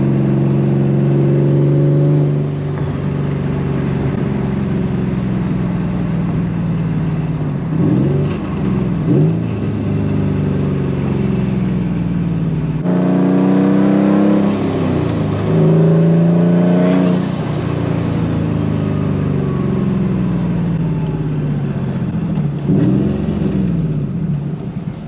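Turbocharged Nissan Silvia S15's engine accelerating under load through the gears: the pitch climbs, then drops at each gear change, three times.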